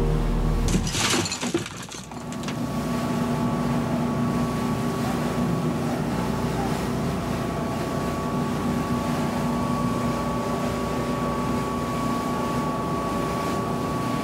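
Boat engines running steadily while the boat is under way, with water churning in the wake; a short burst of hiss about a second in.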